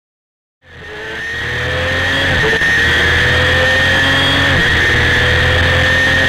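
Honda CBR250RR's inline four-cylinder engine accelerating hard, heard onboard over wind rush. The engine pitch climbs, drops sharply at upshifts about two and a half and four and a half seconds in, and climbs again each time. The sound fades in over the first two seconds.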